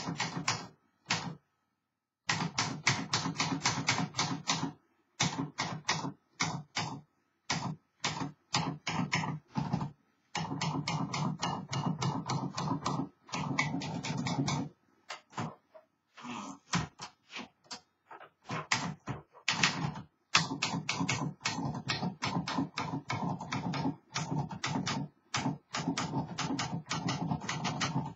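Freshly refurbished 1953 Smith Corona Skyriter manual portable typewriter being typed on: rapid runs of key strikes in bursts of a few seconds, broken by short pauses.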